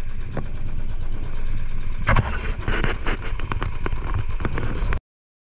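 Royal Enfield Bullet 500's single-cylinder engine running, with sharp knocks and rattles from about two seconds in; the sound cuts off abruptly near the end.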